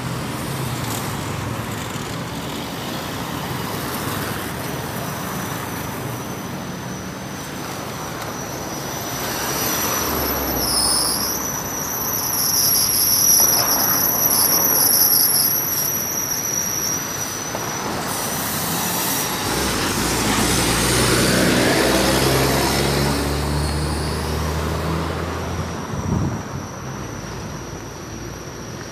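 Road traffic on a busy city avenue: cars driving past with steady engine and tyre noise, and an engine speeding up as a vehicle pulls away about two-thirds of the way through. A thin high whine runs through much of it.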